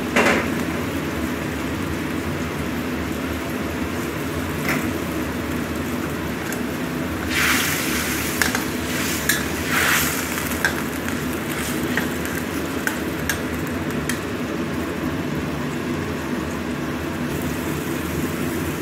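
Soy-sauce braising liquid simmering and sizzling in a steel wok around a fish head, over a steady low hum. A spatula scrapes and stirs in the wok a few times, loudest about seven and ten seconds in.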